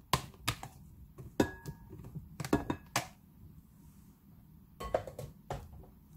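Diced ham and imitation crab stick pieces being tipped into a glass mixing bowl: a series of light knocks and clinks against the glass, several close together in the first three seconds and a few more about five seconds in.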